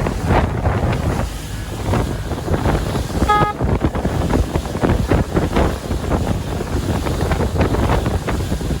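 Wind buffeting the microphone on a boat at sea, over a steady low rumble of water and waves. About three and a half seconds in there is one brief, clear pitched tone.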